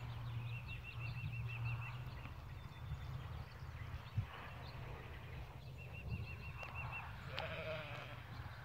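A lamb bleating once, briefly, with a quaver, near the end. A bird's quick warbling trill comes twice, and a low steady rumble runs underneath.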